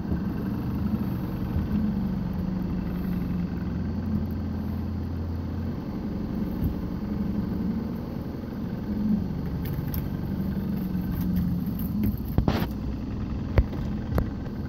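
Boat motor running steadily at low trolling speed, with a low hum throughout. A couple of sharp knocks come near the end.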